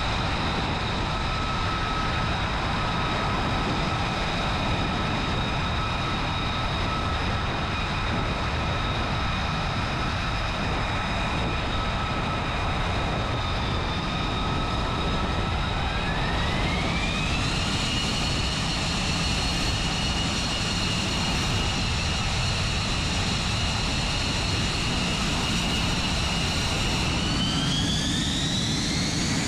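F-35B Lightning II's F135 jet engine running on deck with its lift-fan doors open for short-takeoff/vertical-landing mode: a steady whine over a rumble. The whine climbs in pitch about halfway through, holds, then climbs again near the end.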